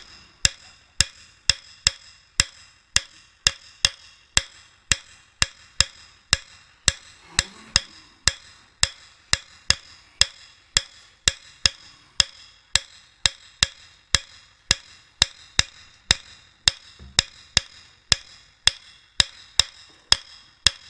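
Regular sharp ticks, about two and a half a second, each with a brief ring.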